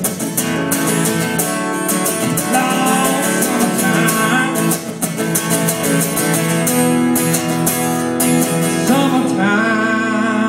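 Acoustic guitar strummed in a steady rhythm: a solo instrumental passage of a country song.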